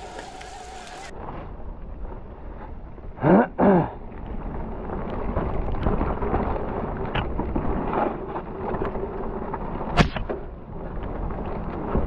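Electric mountain bike riding fast down a dirt forest trail: continuous rumble of tyres and suspension over the ground with wind on the microphone. A steady whine stops about a second in, two loud brief sounds sweep down and then up in pitch a little after three seconds, and a single sharp knock comes about ten seconds in.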